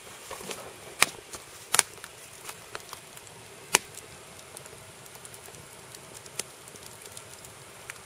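Split-wood fire crackling in a brick firebox, with sharp pops about a second in, a double pop a little before two seconds, another near four seconds, and small ticks in between.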